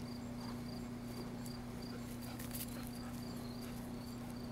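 Insects chirping steadily, a high, even chirp about three times a second, over a steady low hum.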